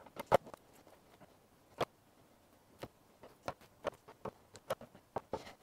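Small scissors snipping thin string of hearts vines into cuttings: a series of short, sharp clicks at irregular intervals, with faint handling of the cuttings between.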